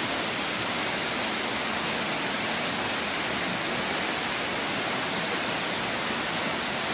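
Waterfall's noise: a steady, even rush of falling water that does not let up.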